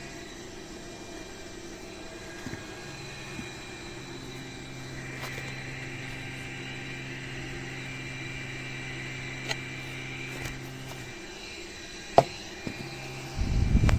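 Personal mini air cooler fan running with a steady motor hum and a few light clicks; near the end a loud low rumbling starts.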